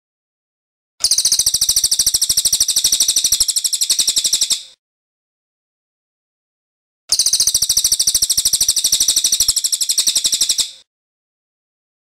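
Racket-tailed treepie (cililin) singing two long rolling phrases, each a rapid, even run of high-pitched notes lasting about three and a half seconds, one starting about a second in and the other about seven seconds in.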